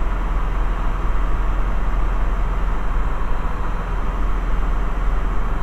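Single-engine Robin DR400/180's four-cylinder Lycoming engine and propeller running steadily in cruise, an even drone with a strong low hum.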